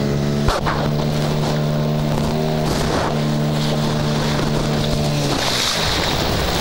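A boat's engine droning at a steady pitch over wind and sea noise. The drone drops out briefly about half a second in and near three seconds, then again near the end.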